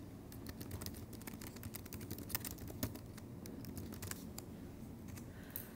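Quiet typing on a computer keyboard: a quick, irregular run of key clicks.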